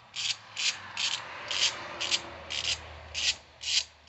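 Hand ratchet wrench swung back and forth as it tightens the valve cover bolts, its pawl clicking in a short rasping burst on each return stroke, about twice a second.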